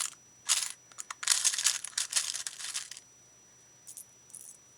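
Small metal charms clinking and rattling as fingers sort through them: a couple of quick bursts, then a denser run of clinks for about two seconds, and two faint clicks near the end.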